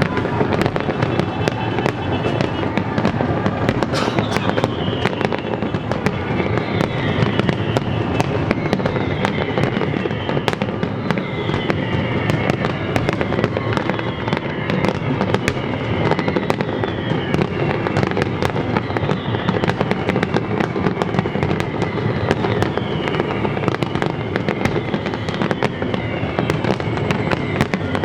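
Fireworks display going off without pause: a dense, steady stream of bangs and crackling bursts.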